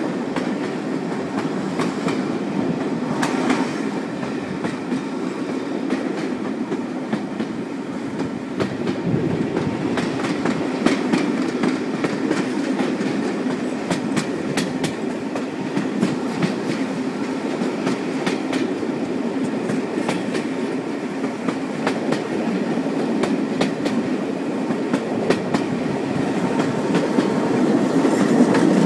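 Railway carriage running along the track: a steady rumble of wheels on rails, with irregular sharp clicks as the wheels pass over rail joints.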